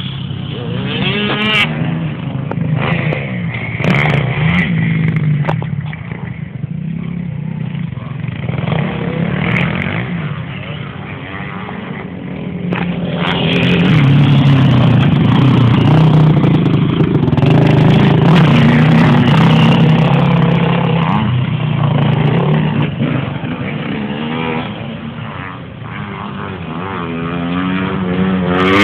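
Motocross bike engine running and revving, its pitch rising and falling; it gets louder about halfway through.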